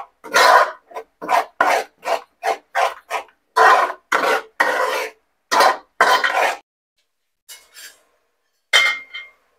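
Steel spoon scraping and stirring thick tomato masala in an aluminium pot, in quick repeated strokes about two a second, pausing briefly before one last stroke near the end. The masala is frying on a high flame and is being scraped off the bottom so that it does not stick.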